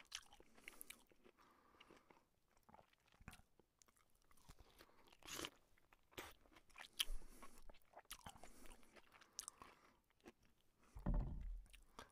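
Eating, close to the microphone: a metal spoon clicking and scraping on a small plate, with soft chewing between spoonfuls. A dull low thump near the end.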